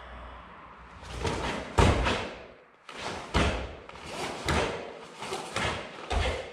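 A quick series of sharp swishes and thuds from a karateka performing kata Heian Yodan. Fast arm and leg techniques snap the karate uniform, and feet strike the floor, about eight or nine in all.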